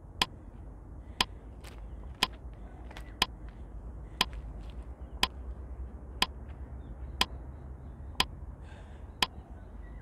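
Countdown timer ticking, one sharp click each second, over a faint low steady rumble.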